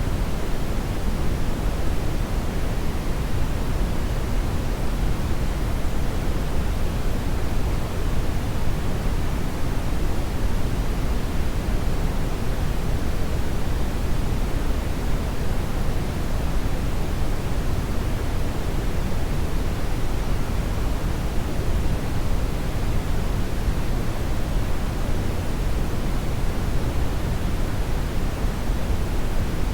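Hair dryer running steadily: an even, unbroken rush of air, heaviest in the low end, with no audible motor whine and no change in speed.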